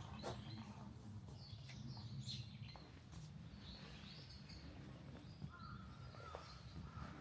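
Birds chirping and calling faintly, with short high chirps through the first half and a repeated call later on, over a steady low outdoor rumble.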